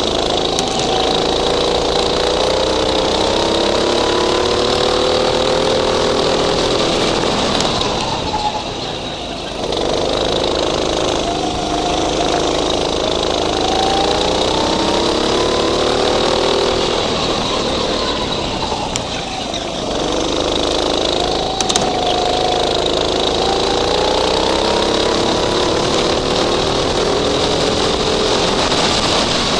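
Go-kart engine heard from onboard, its pitch climbing steadily as the kart accelerates, then dropping away twice, about a third and two-thirds of the way through, as the throttle comes off, before climbing again.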